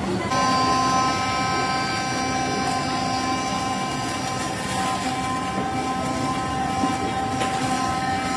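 Electric vegetable pulping machine running, its motor giving a steady hum and whine as it grinds blanched spinach into paste.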